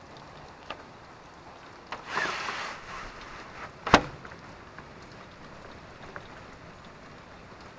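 Light rain as a steady soft hiss with scattered drips. A short rustling burst comes about two seconds in, and a single sharp knock about four seconds in is the loudest sound.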